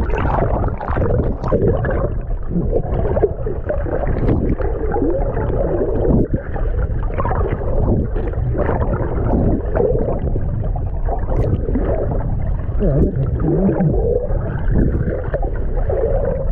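Water heard underwater through an action camera's waterproof housing: a loud, muffled churning and gurgling rumble with no clear highs. A few low wavering tones come through about three-quarters of the way in.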